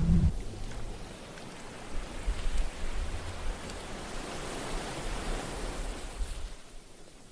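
Wind buffeting the microphone in low gusty rumbles over a steady rushing hiss of wind and sea. It quietens about six and a half seconds in.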